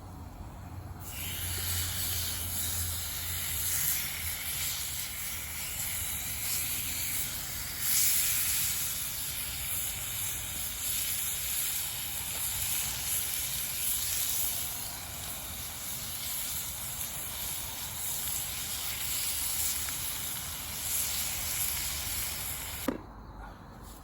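Steak sizzling in a pan over a campfire, a steady hiss that starts about a second in and cuts off suddenly near the end.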